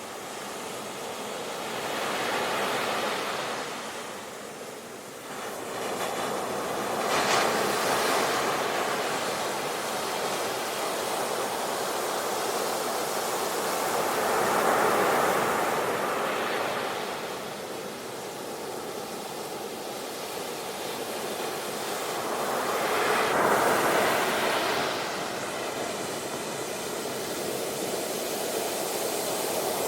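Ocean waves breaking and washing on the shore, the surf swelling and ebbing every few seconds in a steady rushing hiss.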